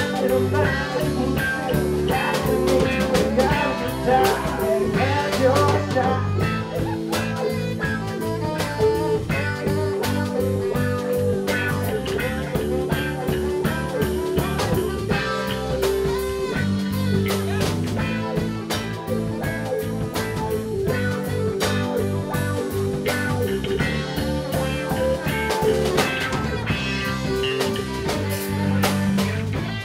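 Live band playing a blues-rock cover at full volume: electric guitar, electric bass and a drum kit driving a steady groove.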